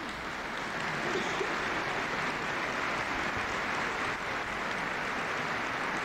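Large crowd applauding: dense clapping that swells over the first second, then holds steady.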